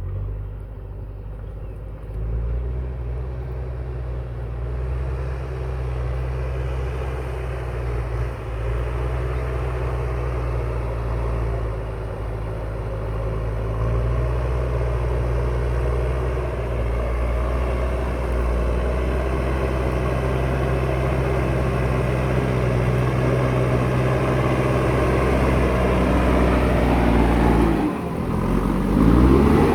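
Diesel engine of a JCB 3DX backhoe loader running steadily under working load. Near the end it dips briefly, then revs up with a rising pitch.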